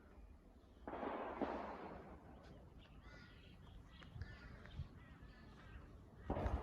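Birds calling: a run of short, harsh, caw-like calls about three to four seconds in. A burst of noise about a second in and another near the end are louder than the calls.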